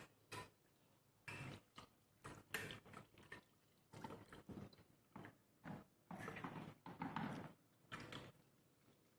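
Hands being washed under water: quiet, irregular splashing and dripping in short bursts.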